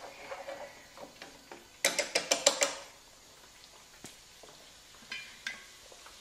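Cooking sounds at a gas stove: light scraping in a frying pan, then about two seconds in a fast run of about seven sharp metallic clicks. A couple of fainter metal clinks follow near the end, about when the pot lid is reached for.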